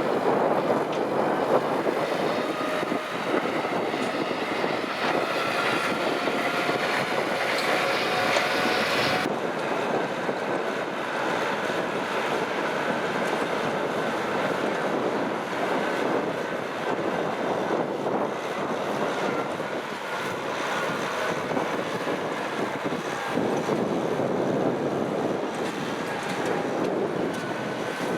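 Kubota M6040SU diesel tractor engines running steadily under plowing load. The sound changes abruptly about nine seconds in.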